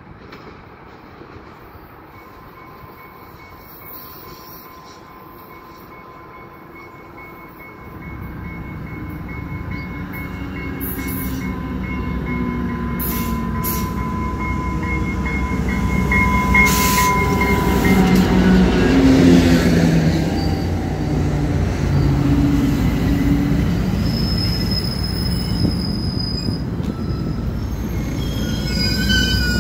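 Diesel-hauled commuter train arriving along a station platform. A steady high two-tone ringing sounds from about two seconds in, and a low rumble starts suddenly about eight seconds in and grows louder. The locomotive's engine passes at its loudest, then bilevel coaches roll by slowly with thin high squeals from the wheels and brakes near the end as the train slows.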